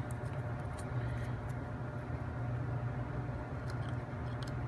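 Steady low background hum with a few faint, light clicks of small plywood puzzle parts being handled and pushed onto toothpick axles.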